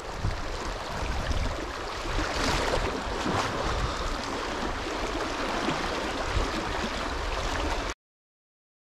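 River current running over a shallow stony riffle, a steady rushing with a low rumble underneath. The sound cuts off abruptly about eight seconds in.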